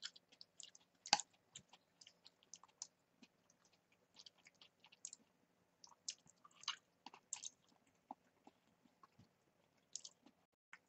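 A person chewing food close to the microphone: faint, irregular mouth clicks and smacks, with one sharper click about a second in.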